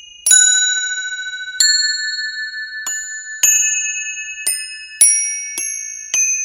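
Bright, high bell-like chimes struck about eight times at uneven intervals, each note ringing on and overlapping the next: a sparkly magic-wand chime effect.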